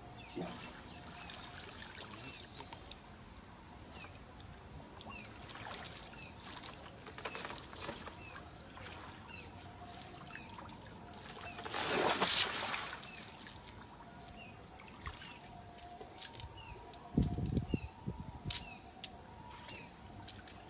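River water splashing and trickling as an Asian elephant is washed by hand, with one loud rush of water about twelve seconds in and a lower splash near the end. A small bird chirps again and again in the background.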